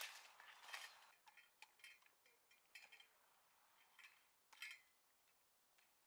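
Faint, irregular rustling and crackling of leafy undergrowth and twigs as someone walks through dense brush, with crisp snaps at uneven intervals that die away near the end.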